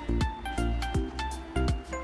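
Background music with a steady beat and a deep, pulsing bass drum.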